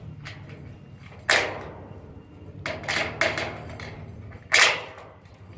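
Sharp metallic clanks and knocks of steel rack parts and hardware being handled and fitted, each ringing off briefly. One comes about a second in, a few close together near the middle and the loudest near the end, over a steady low hum.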